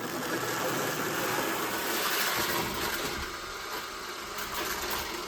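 Roomba robot vacuum running with a steady, loud rushing whir that starts abruptly just before and holds on. It is making a noise that sounds weird.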